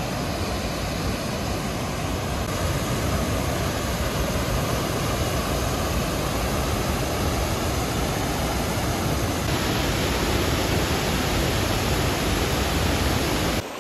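A large mountain waterfall close by: a steady, even rush of falling water. It cuts off abruptly just before the end.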